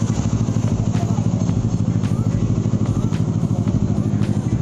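Bristol Bobber 650 motorcycle engine idling steadily, with a fast, even exhaust beat.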